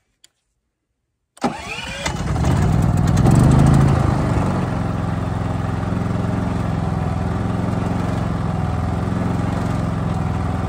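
Cummins Onan P4500i inverter generator starting about a second and a half in: the engine catches, revs up for a couple of seconds, then settles into a steady run.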